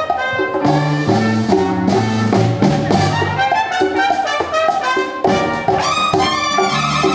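Brass-led instrumental background music, a run of short held notes that change in quick succession.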